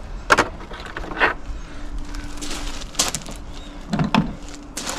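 A handful of sharp knocks and clicks, spaced a second or more apart, from parts of a car's front bumper being handled, over a faint steady hum.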